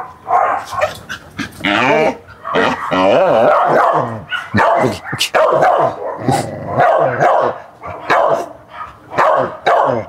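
Dog barking aggressively in rapid runs of repeated barks, a reaction to sausage put down near it in a food-guarding test.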